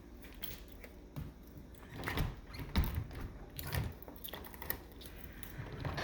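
Someone walking out through a door: scattered clicks and knocks from the door being handled, with a few soft footsteps in the middle.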